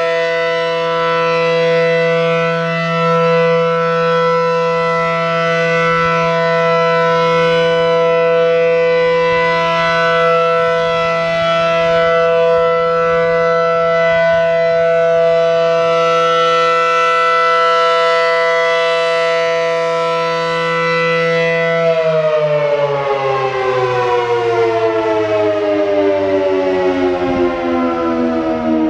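ACA Allertor 125 warning siren, wired in reverse, sounding a steady alert tone, a chord of several pitches, as its horns rotate, so the level swells and dips a little. About 22 seconds in it shuts off and winds down, its chord falling steadily in pitch.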